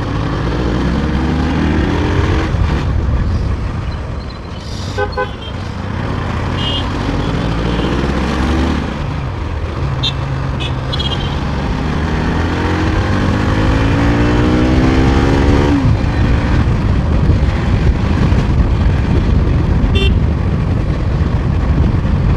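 Bajaj Pulsar NS200's single-cylinder engine accelerating in traffic. Its pitch rises and drops back several times as it shifts, over a steady road and wind rumble. Short horn toots sound from the traffic several times.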